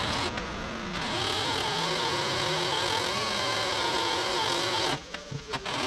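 A motor-driven machine running steadily. It cuts out suddenly about five seconds in and starts again under a second later.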